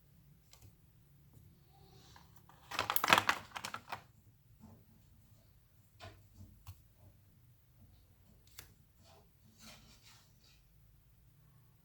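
Clicks and clatter of small hard objects being handled: a dense rattle about three seconds in, then scattered single clicks.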